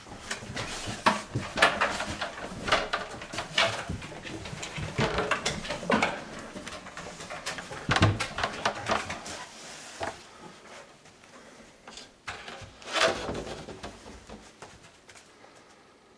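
A dog moving about on wooden stairs: irregular taps, knocks and scuffs of paws and footsteps, with some short dog noises. It is busier in the first half and dies away toward the end.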